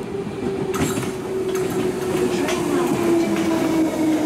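Electric passenger train passing through the station: its traction motors whine in a steady tone that slowly falls in pitch as it slows, over a rumble with a few clicks of the wheels over rail joints.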